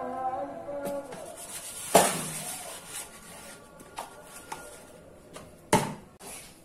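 Red plastic bowl being washed in a stainless steel sink, knocking against the steel: a loud clatter about two seconds in and another near the end, with a few lighter clicks between.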